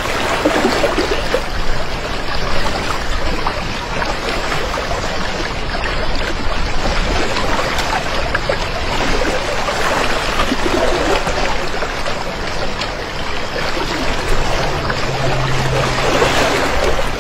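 Steady rush of floodwater, an unbroken watery noise, with a faint low hum for a couple of seconds near the end.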